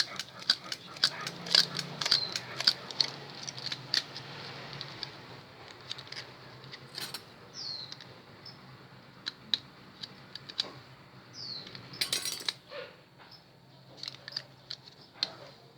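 Copper winding wire being worked onto a power-drill armature: irregular small metallic clicks and ticks, with a few short squeaks and a faint steady hum.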